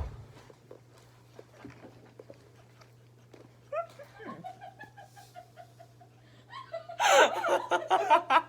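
A sharp thump at the start, then a long fluttering fart-like noise made by a person, stepping down in pitch and then holding for about three seconds. Loud laughter from several people follows near the end.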